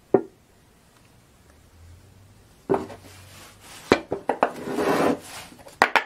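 Metal hub dust caps and a metal can of rubber cement handled on a wooden workbench: a sharp tap just after the start, then from about three seconds in a run of knocks and clicks with a short scraping rub as the can is set down and the caps are moved.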